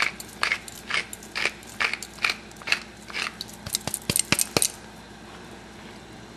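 Hand-twisted pepper mill grinding black pepper: a run of short gritty crunches, about two a second and quickening toward the end, stopping about three-quarters of the way through.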